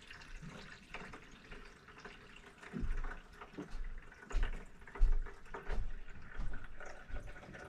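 Water poured from a plastic jug into a condensate pump's reservoir, trickling and splashing unevenly, with several low thumps in the second half. The pour is filling the new pump to test it for leaks.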